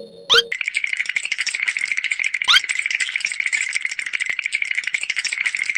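Fast, continuous rattling sound effect that starts about half a second in, with a short rising whistle-like glide at its start and another about two and a half seconds in.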